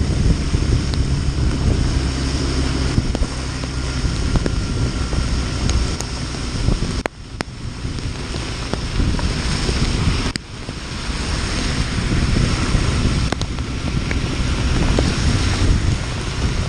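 Wind buffeting the camera microphone over the running engine of a Honda CB Twister 250 motorcycle ridden through heavy rain, with a steady hiss of wet road and spray. The level dips sharply twice, about seven and ten seconds in.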